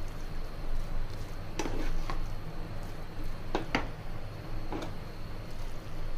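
A handful of light knocks and taps from utensils and dishes being handled, irregularly spaced, over a steady low hum.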